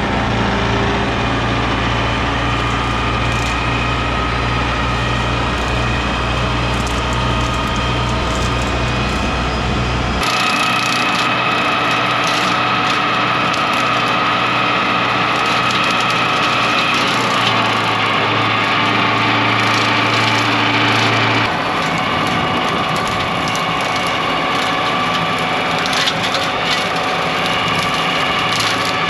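TYM 754 tractor's diesel engine running under load while the front-mounted LaneShark brush cutter spins its blades through dry roadside brush and weeds, with scattered snaps of stems. The tone changes abruptly about a third of the way in and again about two-thirds through.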